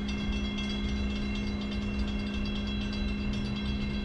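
Diesel freight locomotive running as the train comes on slowly, a steady drone with a low hum and fainter steady higher tones.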